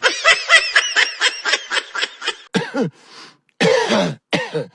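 A person laughing in quick, high-pitched bursts, about six a second, for roughly two and a half seconds, then three short voiced sounds, each falling in pitch.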